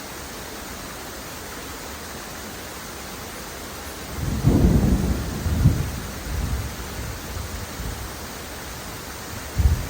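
Steady rushing of water, with a low rumble of thunder rolling in about four seconds in and fading over several seconds; another short low rumble comes near the end.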